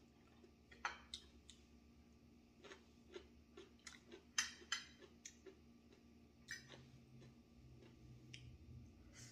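Metal fork and spoon clicking and scraping against a plate while food is cut and scooped up, in scattered light clicks at irregular intervals, the sharpest about four and a half seconds in.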